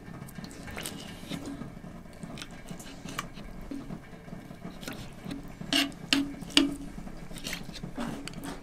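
Fillet knife working on a redear sunfish fillet on a cutting board, cutting out the centerline bones: scattered light taps and clicks with soft wet sounds, and three sharper clicks in quick succession about two-thirds through.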